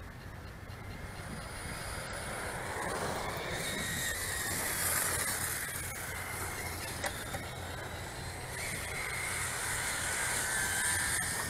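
Radio-controlled cars driving on brick paving. Their motors whine, rising and falling in pitch as they speed up and slow down, over a steady hiss of tyres and drivetrain.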